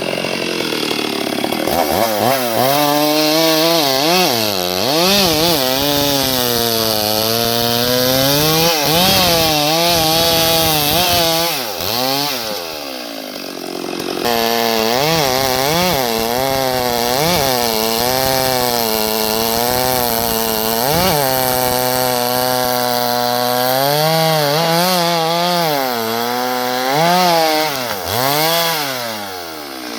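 Chainsaw cutting into a tree, its engine pitch rising and falling as the chain works through the wood. About halfway through it eases off and drops briefly before bearing back into the cut.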